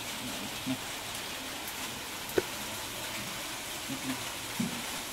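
Steady hiss of rain, with a sharp knock about two and a half seconds in and a few short, soft low sounds.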